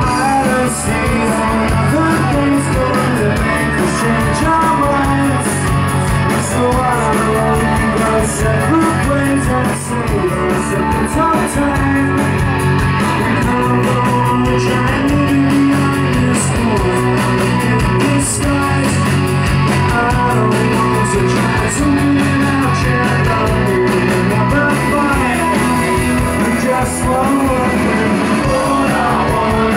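Rock band playing live at full volume: electric guitars, bass and drums, with a voice singing over them at times.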